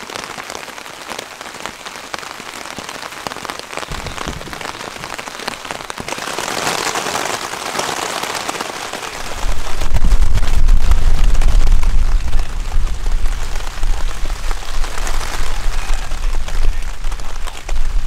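Steady rain falling, briefly heavier about six to eight seconds in. About nine seconds in a deep, loud rumble of thunder comes in suddenly and rolls on under the rain.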